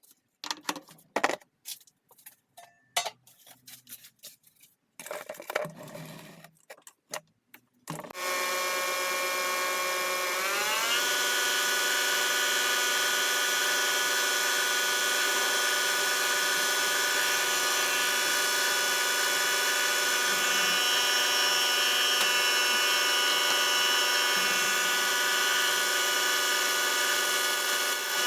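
A few scattered clicks and knocks of metal parts being handled, then a lathe starts about eight seconds in and runs with a steady motor whine. Its pitch rises a couple of seconds after it starts as it speeds up, then holds steady.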